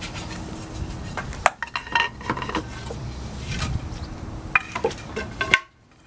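Metal clinking and rattling, with scattered knocks and short ringing clinks. A loud click near the end, then the sound cuts off.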